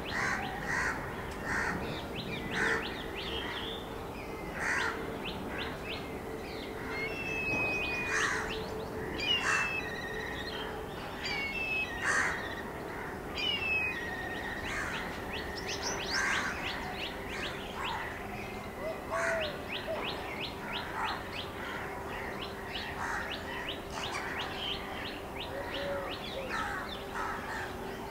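Male purple sunbird calling: short sharp chirps and quick runs of twittering notes, repeated throughout. Behind them are harsher calls of other birds and a steady low hum.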